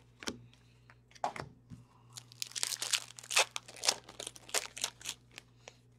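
A hockey trading-card pack being torn open, its wrapper crinkling. A few light handling clicks come first, then a dense run of crinkling and tearing from about two seconds in to about five.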